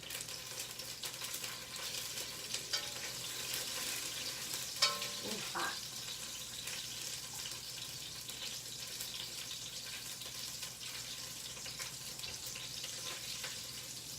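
Steady sizzling from a hot Dutch oven on the stovetop as it comes up to browning heat, with a few light clicks.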